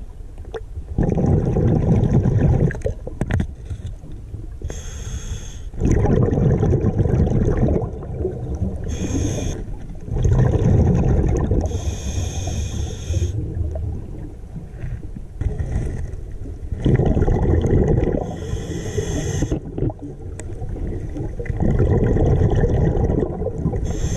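A scuba diver breathing through a regulator underwater. Short hissing inhales alternate with longer rushes of exhaled bubbles, about one breath every five seconds.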